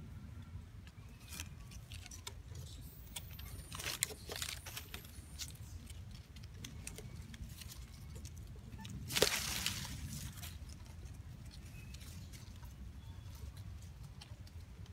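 Leaves and twigs rustling and crackling in scattered bursts, the loudest about nine seconds in, over a low steady rumble.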